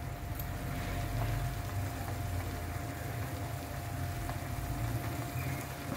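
Grated beetroot bubbling as it simmers in water in a steel pan, cooking soft before the sugar goes in, over a steady low hum.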